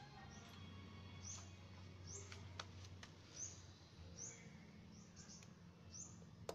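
Faint background with a small bird chirping about once a second, each a short high chirp, and a couple of soft clicks.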